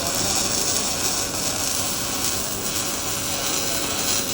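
Welding arc running steadily, an even sizzling crackle as a bead is laid over a steel joint to tie the weld together.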